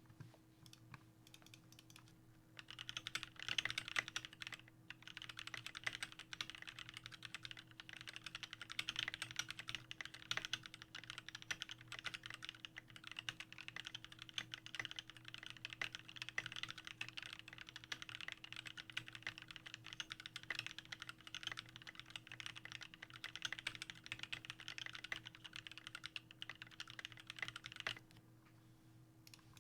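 Continuous typing on a custom 60% mechanical keyboard with lubed and filmed Alpaca linear switches, PBT keycaps, a carbon fibre plate and an acrylic case. A few scattered keystrokes come first, then steady fast typing starts a couple of seconds in and stops shortly before the end.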